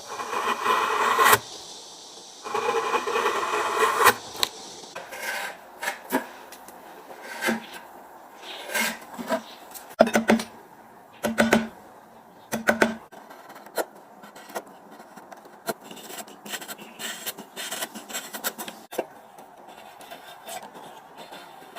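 Hand tool rasping and scraping on wood in uneven strokes, with two longer runs of strokes in the first few seconds, then shorter scrapes and a few sharper knocks.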